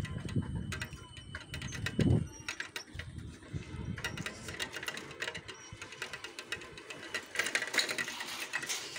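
Bicycle rolling along a concrete road, its freewheel and frame giving a run of rapid, uneven clicks and rattles, with one low thump about two seconds in.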